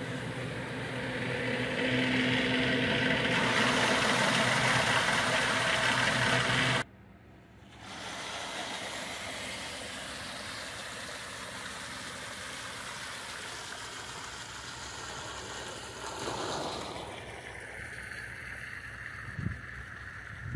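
Water rushing out of a large flexible discharge hose into a rearing pond as the hauling tank of catfish fry is drained into it. A steady low mechanical hum runs under it. The sound breaks off suddenly about seven seconds in, resumes as a steadier rush, and eases off a few seconds before the end.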